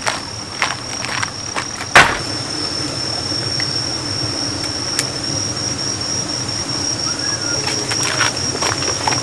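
Insects trilling steadily at a high pitch, with a faint pulse. Footsteps crunch on gravel in the first second or so, a single sharp knock about two seconds in is the loudest sound, and a few light clicks come near the end.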